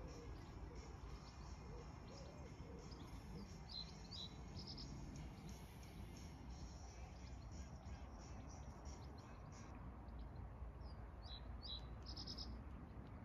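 Small birds chirping in short high calls, in two brief clusters, one a few seconds in and one near the end, over a faint steady low background noise.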